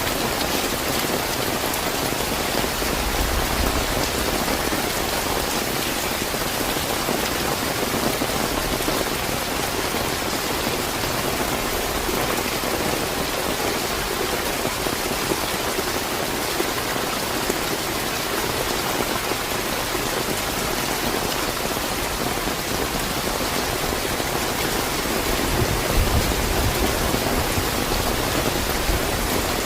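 Steady, slightly heavy rain falling, an even dense hiss of drops, with a brief low rumble a few seconds in and again near the end.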